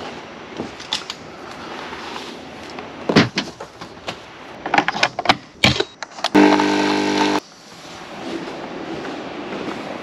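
Nescafé Dolce Gusto capsule coffee machine: a few sharp clicks and knocks as it is handled, then its pump buzzes steadily for about a second and cuts off suddenly.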